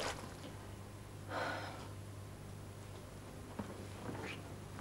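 A woman's breathy sigh about a second and a half in, over a steady low hum, with a few faint soft sounds after it.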